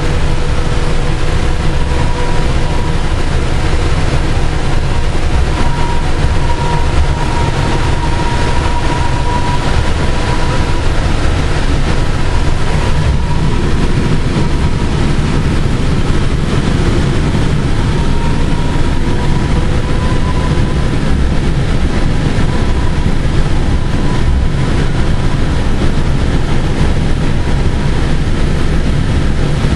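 Light rail train running, heard from inside the passenger car: a steady, loud low rumble, with a thin steady whine that comes and goes over the first half or so.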